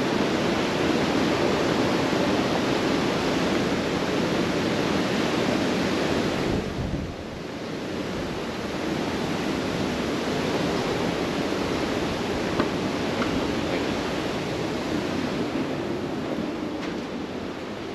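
Steady rush of wind and sea passing a cruise ship's open deck, with wind buffeting the microphone; it dips briefly about seven seconds in and eases slightly near the end.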